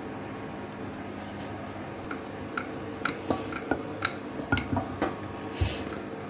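Rolling pin working dough on a stone rolling board, with irregular light knocks and clicks, about one or two a second, starting about two seconds in and including one short scrape near the end. A steady faint hum sits underneath.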